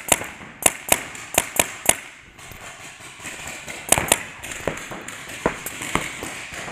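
Paintball marker shots: about six sharp pops in quick succession in the first two seconds, a pair about four seconds in, then a few scattered single shots.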